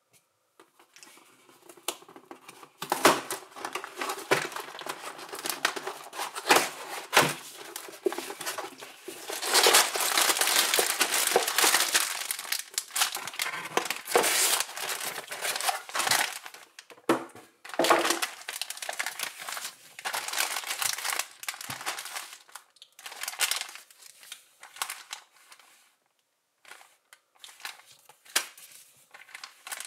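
A LEGO set's packaging being opened and handled: crinkling and tearing with scattered sharp clicks and knocks. A long, dense stretch of crinkling and tearing runs through the middle, and shorter rustles and clicks follow.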